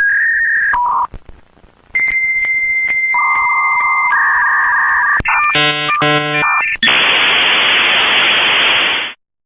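Dial-up modem handshake: steady beeping tones, one with regular clicks through it, then a brief buzzy chord and a loud hiss of noise from about seven seconds in that cuts off suddenly near the end.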